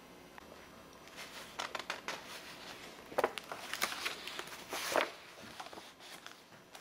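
Stiff old scrapbook pages being turned by hand, the paper rustling and crinkling in a run of irregular rustles from about a second in, loudest twice near the middle and end.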